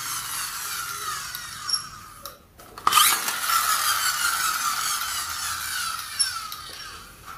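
Small toy stunt car's drive whirring with a high whine that slides down in pitch and dies away a little over two seconds in. It starts again sharply with a click about a second later and winds down once more.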